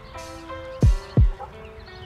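Hip-hop instrumental beat: deep 808 bass kicks with a falling pitch, two of them close together about a second in, with snare hits over a melody of held notes.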